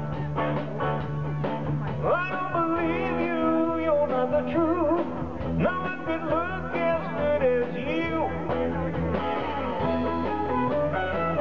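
A live band playing an upbeat rock-and-roll number, with electric guitar, drums and trumpet.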